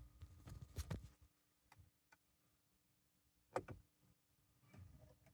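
Near silence in a car cabin, broken by faint clicks of controls being handled: a cluster in the first second, two light ticks around two seconds in, and another cluster about three and a half seconds in, over a faint steady hum.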